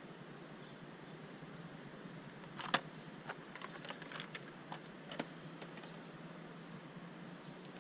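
A string of light clicks and taps, as of small objects being handled, over a steady low hiss. The loudest click comes a little under three seconds in, and the rest follow over the next two and a half seconds.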